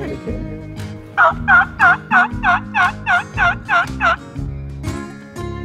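A series of about ten evenly spaced turkey yelps, roughly three a second for about three seconds, made by a hunter on a turkey call to draw a response from gobblers.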